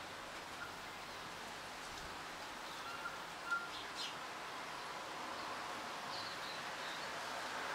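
Wind rustling through the leaves and fronds of trees and tree ferns, a steady hiss that swells a little toward the end. A few short bird chirps sound over it.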